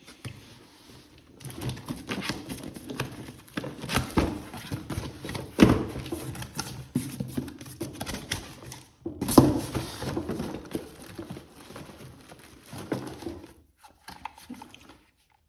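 A cardboard box being opened and unpacked: rustling and scraping with irregular knocks and clunks as the contents are handled and lifted out. The loudest knocks come about four, six and nine seconds in.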